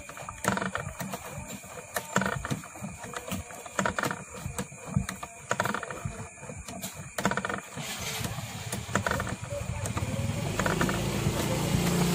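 Irregular light clicks and taps from a coil-winding jig as copper wire is wound onto a transformer bobbin. From about eight seconds a steady engine-like hum rises and grows louder toward the end.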